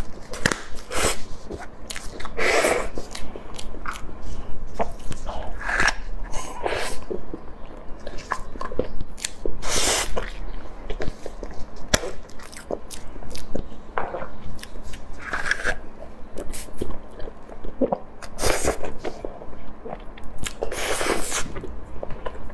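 Close-miked eating: biting and chewing with wet mouth clicks and smacks, broken by several longer sucking or slurping sounds.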